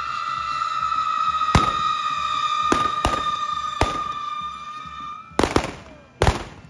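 Firecrackers going off in a street procession: single sharp cracks about one and a half, three and four seconds in, then two louder bangs near the end. A long held musical note sounds underneath and fades out shortly before the last two bangs.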